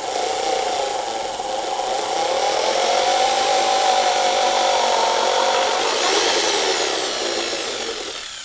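Corded electric drill running continuously as its bit bores a screw hole into a pine board, with a steady motor whine that slows and fades near the end.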